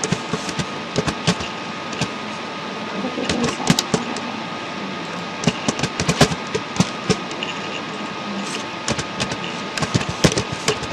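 Computer keyboard typing: irregular runs of sharp key clicks with short pauses between them, over a steady background hiss.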